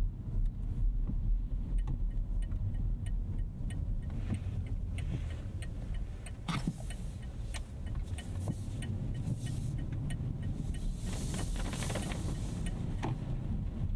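Cabin sound of a 2025 Rolls-Royce Ghost Series II driving on a wet road: a steady low rumble, with a light regular ticking through the first half and passing swells of hissing spray about halfway through and again near the end.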